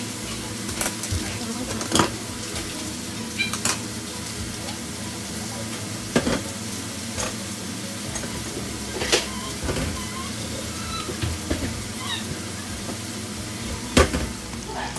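Diced beef steak frying in a skillet: a steady sizzle, with a few sharp clicks and knocks of utensils against the pans, the loudest one near the end.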